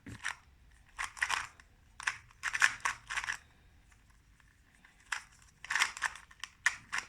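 Plastic 2x2 speed cube being turned fast: bursts of rapid clicking and rattling of the layers. There is a pause of about a second and a half in the middle before the turning resumes.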